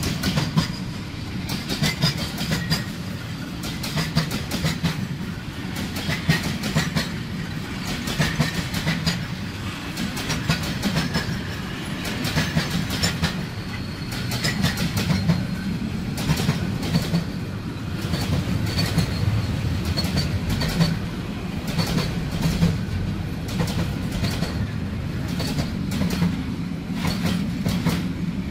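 Freight train's container flat wagons and tank wagons rolling past close to the track: a steady rumble of steel wheels on rail, broken by repeated clacks as the wheelsets cross the rail joints.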